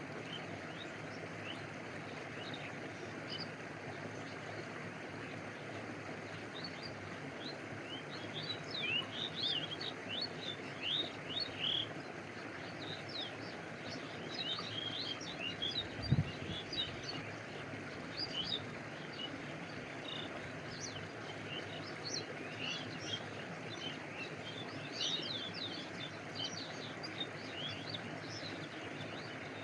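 Steady rushing of a flowing stream, with bursts of rapid high bird chirps from about a quarter of the way in until near the end. A single brief low thump falls about halfway through.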